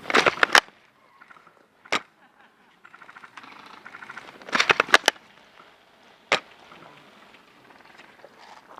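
Airsoft guns firing: a quick burst of sharp shots at the start, a single shot about two seconds in, another burst of about six shots near the middle and a single shot a little after six seconds, with faint rapid ticking between them.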